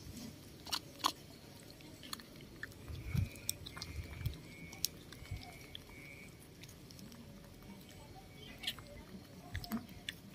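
Two baby macaques biting and chewing a piece of fruit held out to them by hand: faint, irregular wet clicks and smacks of eating.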